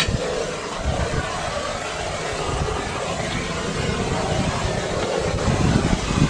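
Blowtorch burning steadily, a continuous rushing noise with a low, uneven rumble.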